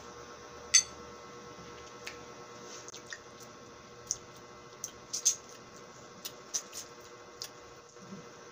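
Close-miked wet mouth sounds of sucking and biting on a raw lemon slice: scattered squishy smacks and clicks, a sharp one about a second in and a small cluster around the middle.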